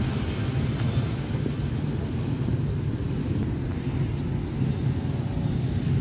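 Steady low rumble with a noisy haze and no distinct events, the kind made by wind on the microphone or a distant engine.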